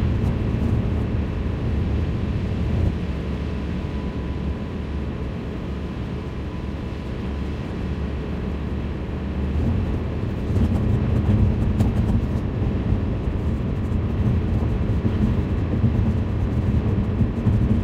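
Road noise inside a moving car's cabin: a steady low rumble of tyres and engine that grows louder about ten seconds in.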